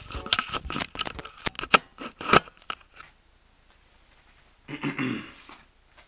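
Handling noise from a handheld camera: a quick run of sharp clicks and knocks over the first two and a half seconds, then quiet, then a short muffled sound about five seconds in.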